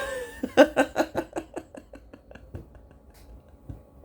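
A man laughing: a quick run of short breathy laughs, about five a second, that fades out within a few seconds.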